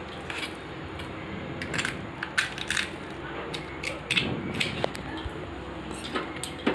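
Crisp fried phuchka shell crackling as a spoon presses potato filling into it: a string of small, irregular crunches and clicks.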